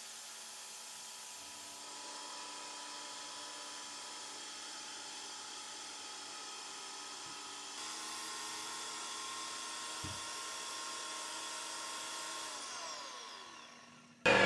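Graco X7 handheld airless paint sprayer's electric pump running steadily, pumping clean water through to flush out paint, a steady whine. Near the end it winds down, the whine falling in pitch and fading as it is switched off, and a sudden louder noise cuts in right at the end.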